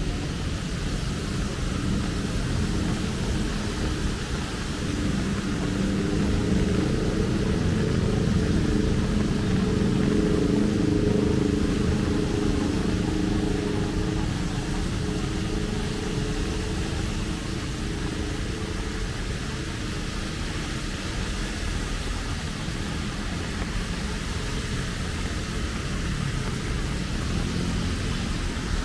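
Traffic on a rain-soaked city street: a steady hiss of rain and wet tyres, with a motor vehicle's engine rising and fading as it passes in the middle.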